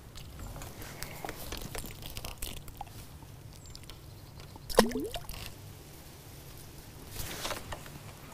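A bleak dropped into the keepnet lands in the water with a single sharp plop about five seconds in, among light clicks and rustles of handling the pole and tackle.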